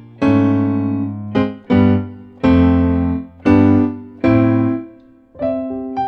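Grand piano patch on a Korg Triton software synthesizer playing a slow run of chords, each struck and left to ring and fade, with quicker, lighter notes near the end.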